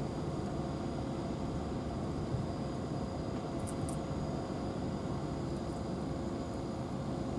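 Steady low rumble of distant engine noise with a faint steady hum, unchanging throughout.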